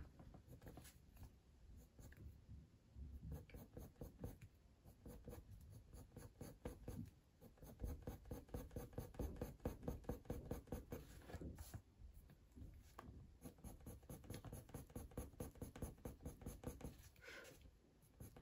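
Coloured pencil being worked across watercolour paper in fast, short shading strokes, several a second. The faint scratching pauses briefly near the end as the pencil lifts.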